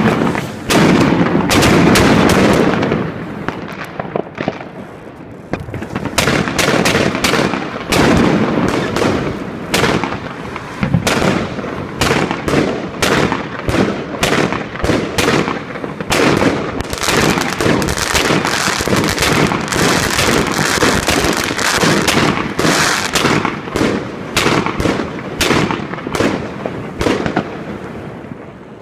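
Evolution Fireworks 'The Golden Age' 160-shot cake firing: a loud dense burst of shots at first, then a steady run of about two shots a second, each with crackling, fading near the end.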